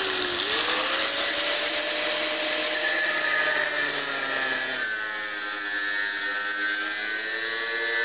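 Angle grinder with a cutting disc cutting through the sheet-metal tin of an old car fuel tank: a steady motor whine that dips briefly near the start, over a loud hiss of the disc on the metal.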